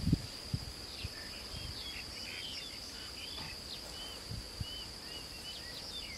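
A steady high-pitched insect drone with small birds chirping on and off over it. A knock right at the start and two lighter ones about four and a half seconds in.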